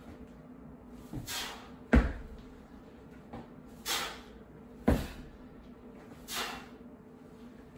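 Feet landing with hard thuds on a wooden floor during explosive jumping drop-downs, two loud landings about three seconds apart, with short forceful exhalations in between.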